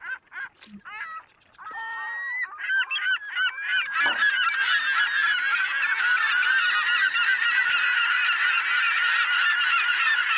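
Seaside soundscape of seabirds calling: a few quick separate calls at first, thickening about four seconds in into a dense, continuous chorus of many birds calling over each other. A single sharp click comes about four seconds in.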